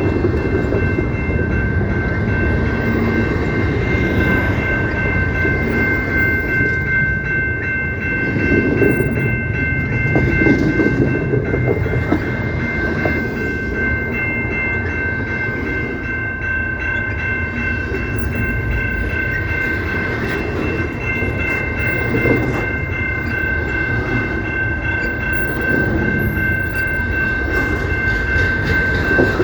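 CPKC train rolling past, its rail cars rumbling and clattering, with a steady high-pitched whine held the whole time.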